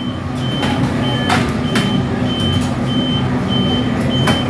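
Commercial bread oven's timer beeping: a steady series of short, high electronic beeps, about one and a half a second, the signal that a bake is done. Under it runs a steady machine hum, with a few sharp clatters of kitchen work.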